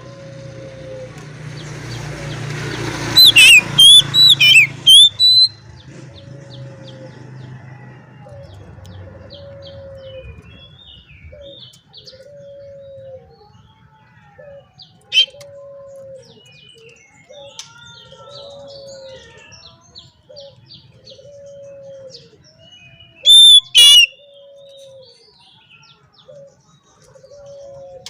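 Oriental magpie-robin (kacer) singing: loud bursts of rapid, high whistled phrases a few seconds in and again near the end, with softer scattered chirps between. Beneath it, a low arched note repeats about every second and a half from another bird.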